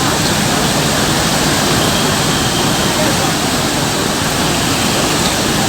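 Loud, steady rush of turbulent water, as of a flood torrent, with faint voices underneath.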